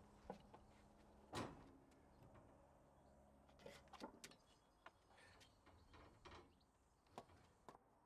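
Near silence broken by a few faint wooden knocks and bumps as a timber beam is lifted and fitted against the posts of a frame; the loudest knock comes about a second and a half in, and a cluster of lighter taps follows around the middle.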